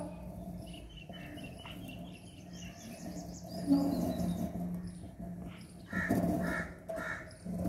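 A crow cawing three times in quick succession near the end, over a faint steady low hum. There is a brief louder sound a little past halfway.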